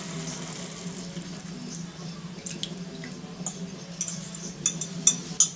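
Sugar syrup poured from a glass measuring cup into a saucepan of coconut flakes, trickling and dripping, over a low steady hum. Several sharp clicks come in the second half, metal and glass tapping as the cup is emptied and the mix is stirred.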